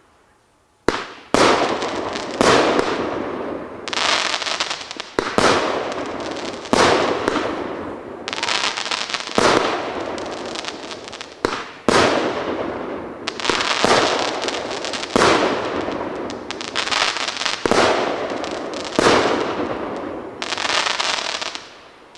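TB48 firework battery firing a rapid series of shots, a new sharp bang about every second, each followed by a fading hissing, crackling tail. The firing stops just before the end.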